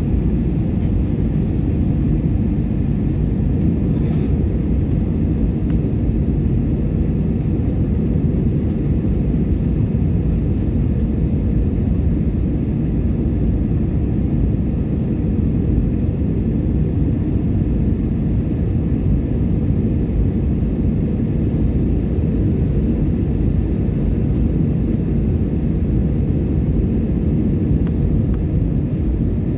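Airbus A320 cabin noise in flight: a steady, even rumble of engines and airflow with a faint high whine above it, unchanging throughout.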